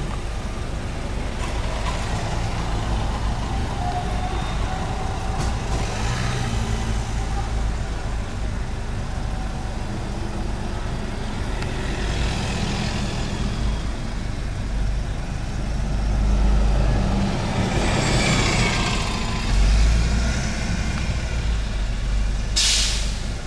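Road traffic at a tram level crossing: a steady low rumble of passing vehicles and a tram crossing the road, with a few louder swells as vehicles go by. Near the end comes one short, loud hiss.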